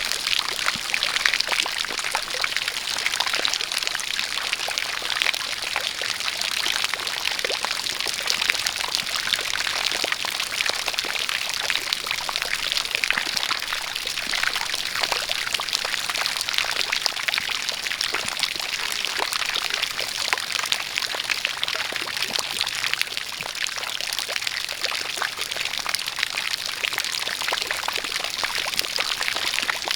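Steady rain with a stream of water pouring and splashing, a dense, even hiss full of fine drip and splash ticks.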